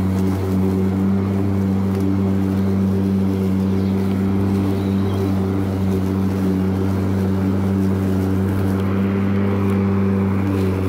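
EGO LM19 47 cm cordless battery lawn mower running steadily while cutting grass: an even electric hum from the motor and spinning blade, with a constant pitch.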